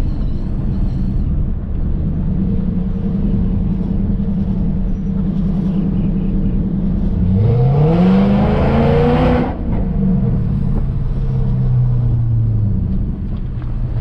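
Infiniti M45's 4.5-litre V8 engine running steadily on the road, then pulling hard about seven seconds in with a rising pitch for about two seconds before it drops back.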